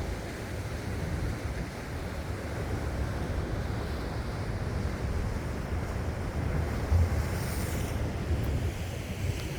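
Sea surf washing on a shore, with wind buffeting the microphone in a low rumble and a stronger gust about seven seconds in.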